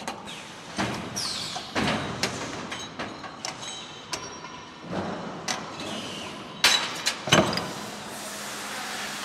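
Metal brake-shoe parts and a steel jig being handled on the steel bed of a press, clanking and scraping. There is a high scraping screech about a second in and several sharp metal knocks, the loudest two close together near the end.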